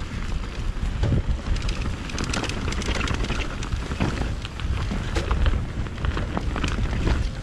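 Mountain bike riding down a trail: wind buffeting the microphone as a steady low rumble, with the tyres on the ground and many short clicks and knocks of the bike rattling over the rough surface.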